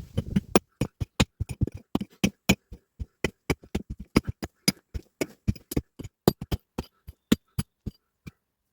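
A quick, irregular run of sharp knocks or taps, about five a second, which stops near the end.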